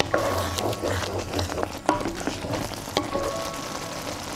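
A wooden spatula stirring thick curry in a pot, knocking against the pot a few times, with the curry bubbling at a simmer.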